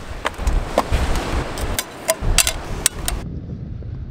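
A run of irregular clicks and knocks as a gas-canister camp stove and its metal frying pan are handled and set down on rock. The clatter stops abruptly about three seconds in.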